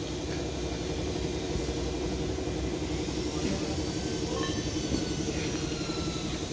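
A steady engine-like mechanical drone, a low even hum with a fast regular throb, like a motor running at idle.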